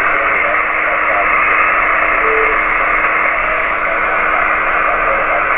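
Homebrew BITX (Bixen) HF SSB transceiver receiving on the 40 m band: a steady rushing hiss of band noise through the speaker, squeezed into the narrow voice passband, with faint garbled traces under it. A brief tone sounds about two seconds in.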